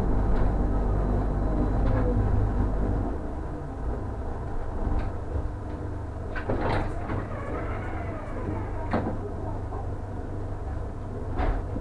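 Interior of a Bombardier NGT6 tram: the running rumble of the tram dies away about three seconds in as it comes to a stop. Then several mechanical clunks follow, a few seconds apart, with a faint gliding whine among them, typical of the passenger doors operating.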